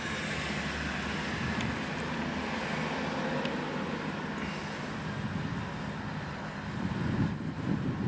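Steady traffic noise from outside, heard inside a parked truck's cab, growing louder near the end.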